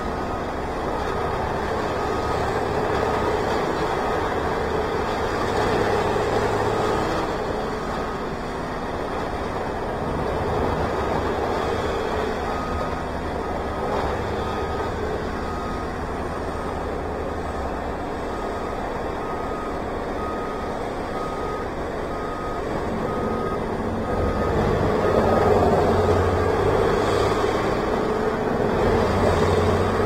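Heavy machinery engine running with a reversing alarm beeping about once a second, in two long stretches. The engine grows louder near the end.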